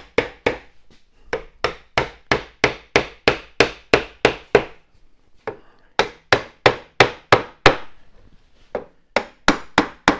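Hammer blows on wood, about three a second, in three runs with short pauses between them. The chair's back pieces are being driven home into their glued joints during assembly.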